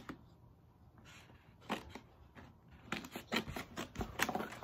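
Toy packaging being handled and opened: scattered clicks and crinkles, sparse at first, then a dense run of them from about three seconds in.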